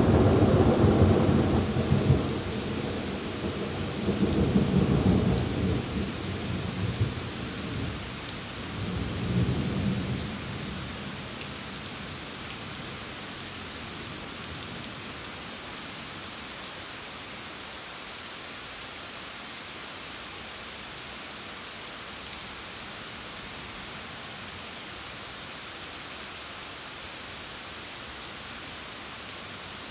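Thunder rumbling over steady rain, the roll swelling twice more before dying away about ten seconds in; after that only the steady rain continues.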